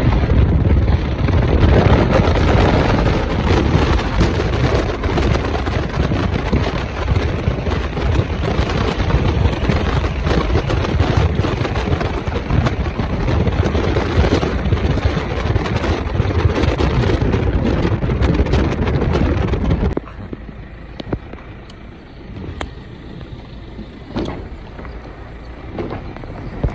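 Wind and road noise of a car driving along a country road, heard from inside the car. About 20 seconds in it drops suddenly to a much quieter rumble with a few light knocks.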